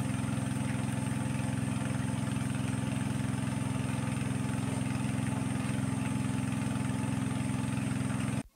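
A small engine running steadily at an even idle, cutting off suddenly near the end.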